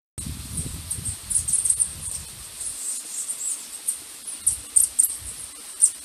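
Insects chirping at a high pitch, a steady shrill drone with louder irregular chirps, the loudest near the end. A low rumble runs under it for the first few seconds, then stops.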